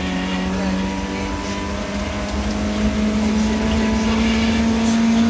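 BMW E30 318is rally car's 1.8-litre four-cylinder engine heard from inside the cabin, pulling in one gear with the revs climbing slowly and steadily, over a low rumble of road noise.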